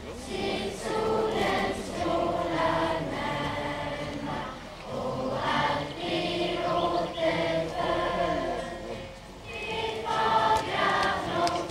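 A large group of schoolchildren singing a song together as a choir, held notes sung in phrases with short breaks between them.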